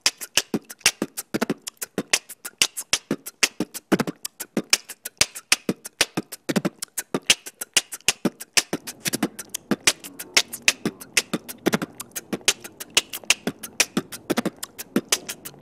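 Background music made of a fast percussive beat: crisp clicks and hits several times a second, with deeper thumps here and there, in a beatbox-like style.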